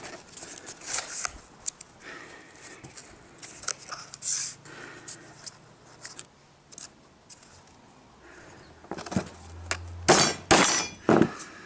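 Quiet clicks and taps of tools and a cardboard template being handled, then a few sharp hammer blows on a punch near the end, punching bolt holes through a rubber mud flap into a wooden block beneath.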